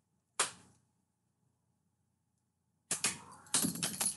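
Cat at play with a spring toy on a wooden parquet floor: one sharp snap about half a second in, then a quick run of clicks and knocks from about three seconds in.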